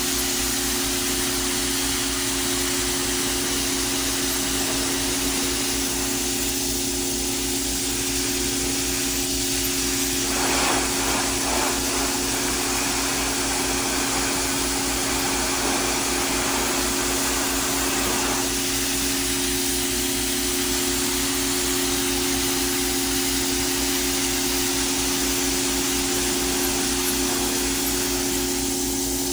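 Pressure washer running, its water jet spraying with a steady hiss over the even drone of the machine's motor and pump. The spray turns fuller and brighter for several seconds in the middle.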